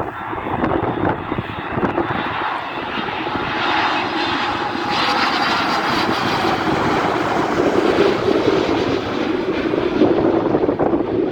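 Airbus A310-300 freighter's two turbofan engines passing close on its landing approach: a loud, steady jet noise that swells over the first few seconds and stays loud.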